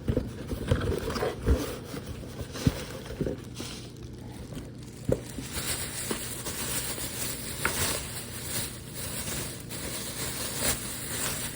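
Packaging being handled: scattered scrapes, rustles and light knocks of a cardboard and plastic toy-car box.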